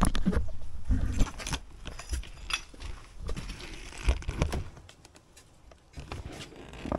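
The camera being picked up and moved by hand: irregular knocks, bumps and rubbing, loudest in the first second and a half. No power tool is running.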